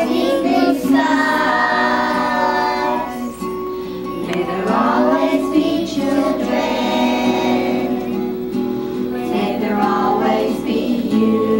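Kindergarten class singing a song together in unison, children's voices holding long notes in phrases with short breaks between them.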